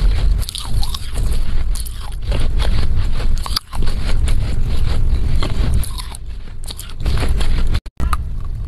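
Close-miked chewing of dry Chinese loess clay: dense, irregular gritty crunching and crackling right at a lavalier microphone held to the lips. The sound cuts out briefly near the end.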